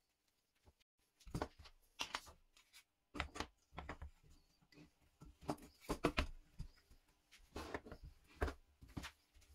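Small plywood parts and dowels being handled: about a dozen uneven knocks and scrapes of wood on wood as pieces are picked up, set down and pressed together on a hard floor.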